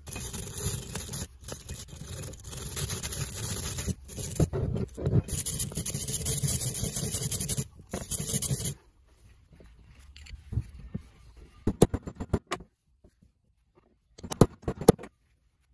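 Hand wire brush scrubbing a metal vise body in a rasping scrape, with short pauses, stopping about nine seconds in. Then a few sharp metal clinks and knocks in two short clusters near the end.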